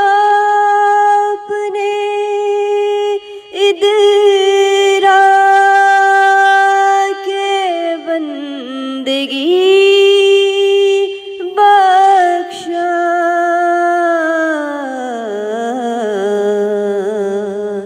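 A woman singing a naat, holding long drawn-out notes with slow glides between them and no instruments heard. Near the end the melody sinks gradually to a lower held note.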